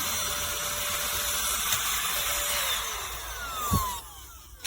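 Small motor of a cordless handheld car vacuum running with a steady whine, then switched off about three seconds in, its pitch falling as it spins down, with a short knock just before it goes quiet. Its suction is weak, barely able to lift a pound coin.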